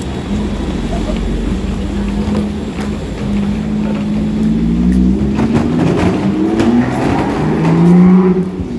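Hard wheels of rolling suitcases running across a hard floor: a steady rumbling whir whose pitch wavers up and down with the rolling speed, with scattered clicks as the wheels cross joints. It is loudest near the end.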